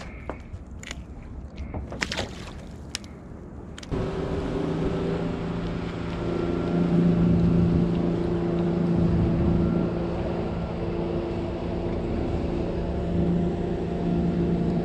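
A few sharp clicks as a lure and line are handled. About four seconds in, the steady hum of a boat engine starts abruptly and runs on at an even pitch, louder from about six seconds in.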